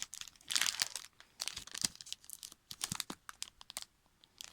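A trading-card pack wrapper being torn open and crinkled by hand, in irregular crackly bursts that die away near the end.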